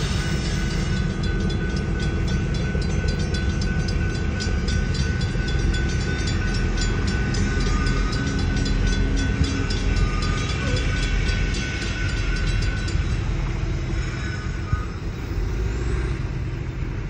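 Electronic railroad crossing bell (e-bell) dinging about twice a second over a steady low rumble from the departing train. The bell falls silent about thirteen seconds in.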